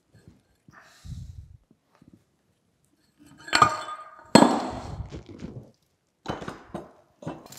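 Rusty cast-iron parts of a cane mill clanking as a gear and shaft piece is worked free and lifted off the frame: a faint scrape about a second in, two sharp metal knocks with a short ring in the middle, the second the loudest, then a few lighter clinks near the end.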